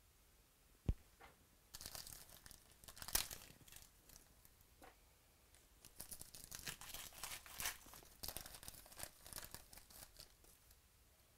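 Foil baseball-card pack wrappers being torn open and crinkled by hand, in two spells of dense crackling, after a single sharp knock about a second in.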